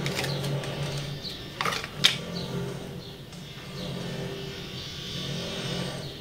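A few small clicks and a sharp tap about two seconds in, from earrings being handled and changed, over a steady low hum.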